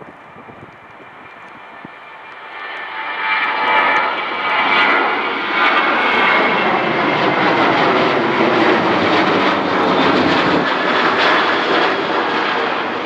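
Boeing 737 jet airliner's engines at takeoff power. The noise swells from about two and a half seconds in and then stays loud and steady as the plane climbs away, with a whining tone in it around four seconds in.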